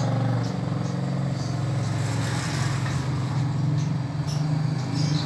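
A steady, low engine drone, with a few short, high chirps from a caged prenjak (prinia) over it.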